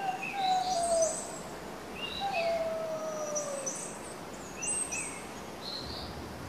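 Forest birds calling: short high chirps scattered throughout, with two long, slowly falling whistled calls in the first half.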